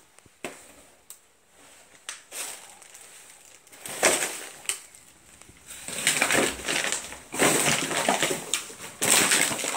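Plastic bags and litter rustling and crunching in irregular bursts, sparse at first and then dense from about four seconds in.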